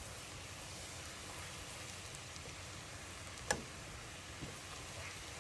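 Chopped onion sizzling steadily in hot butter and olive oil in a pot, being fried until it starts to colour. A single sharp tap about three and a half seconds in.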